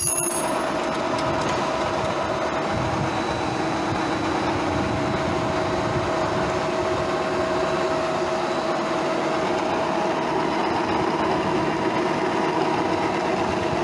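Rocco R-50 radial drill press running steadily: its motor and gear head give an even mechanical hum with a few constant whining tones.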